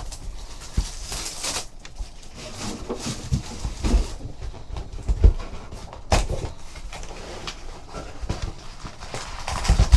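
Trading-card box and foil packs being opened and handled: wrapper crinkling and tearing, with scattered light knocks of packaging on the table.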